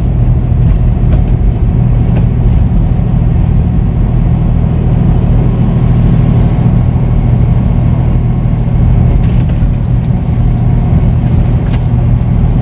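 Semi truck cruising on the highway, heard from inside the cab: a steady low engine drone with road and tyre noise.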